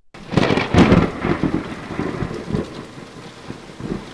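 Thunder and rain sound effect: a sudden crack of thunder just after the start, loudest in the first second, then a rolling rumble that slowly fades over a steady hiss of rain.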